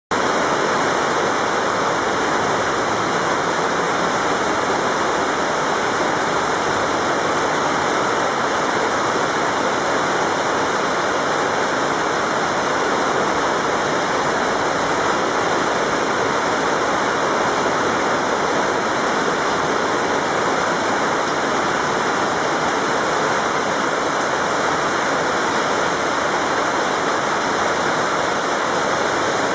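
Heavy tropical downpour: a dense, steady hiss of rain falling on a road and grass, unbroken and even throughout.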